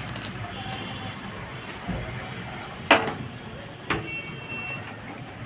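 Two sharp knocks about a second apart, about three seconds in, as an ATX power supply unit is set into a metal computer case, over a low steady background.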